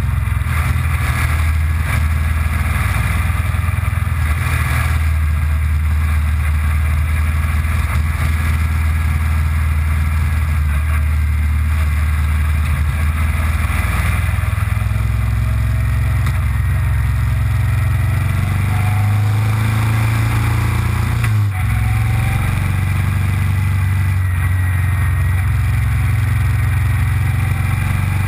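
Motorcycle engine running steadily at cruising speed, with wind rush over the microphone. About three-quarters of the way through, the engine note glides and breaks briefly, like a gear change, then settles again.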